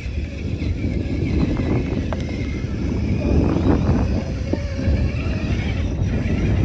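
Traxxas Summit RC crawler's electric motor and geared drivetrain whining as it crawls, with a few scattered clicks, under a heavy low rumble.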